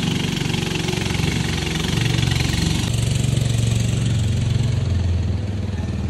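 A small engine running steadily near idle, its pitch sinking slowly over several seconds.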